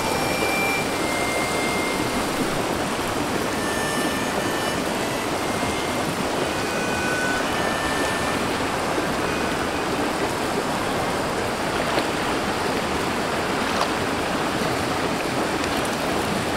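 Shallow forest stream running, a steady even rush of flowing water.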